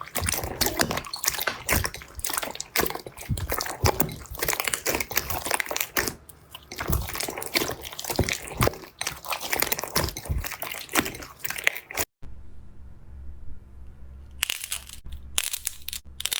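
Slime being squeezed and pressed by hand, a dense run of crackles and pops. About three-quarters of the way through the crackling cuts off for a couple of seconds, leaving a low hum, then starts again.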